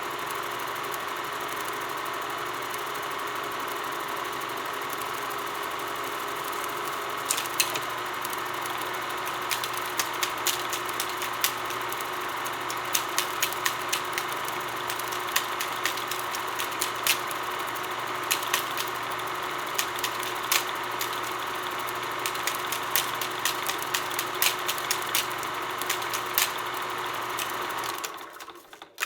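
Film projector running with a steady motor hum. From about seven seconds in, irregular sharp clicks sound over it, and near the end the hum cuts off, leaving only scattered clicks.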